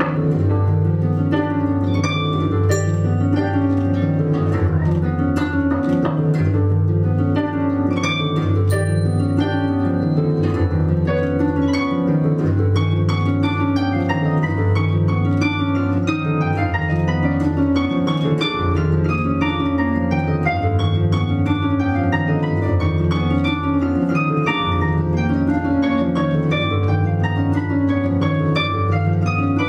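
Two concert harps playing together: a fast stream of plucked notes over low bass notes that are held and change every second or two.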